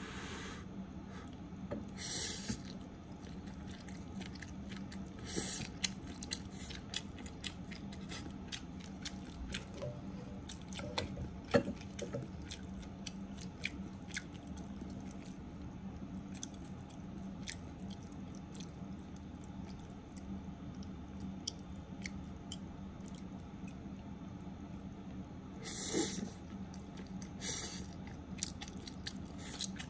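Close-miked chewing of stir-fried spaghetti: many soft wet mouth clicks over a steady low hum. There are a few brief louder noisy bursts, two in the first six seconds and two near the end.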